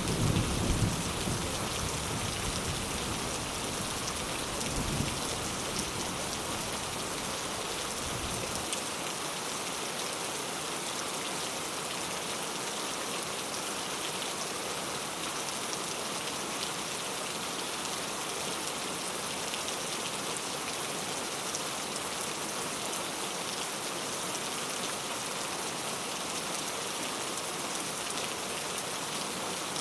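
Steady rain falling on surfaces. The low rumble of thunder dies away over the first eight seconds or so.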